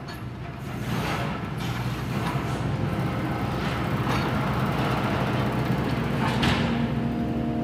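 A heavy engine running with a steady low rumble, fading in at the start, with a few sharp knocks or clanks now and then.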